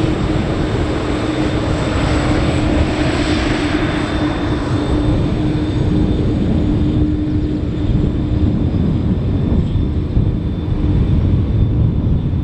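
Airbus A330-300 jet engines at taxi power as the airliner rolls past close by: a steady rumble and hiss with a low humming tone. The hiss is strongest about three seconds in, then fades as the aircraft moves away.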